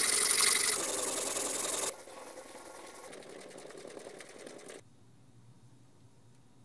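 Pearl oyster shell blade scraped on a diamond sharpening plate, a dense rasping grind; about two seconds in it gives way to a softer, steady rubbing of the shell on a whetstone, which stops about five seconds in, leaving faint room tone.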